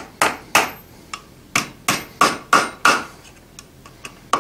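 Blacksmith's hand hammer striking a red-hot steel bar on the anvil, bending the hook end of a forged S-hook at the anvil's horn. About ten ringing blows come in an uneven rhythm: a quick run of five in the middle, a pause with two light taps, then a hard blow near the end.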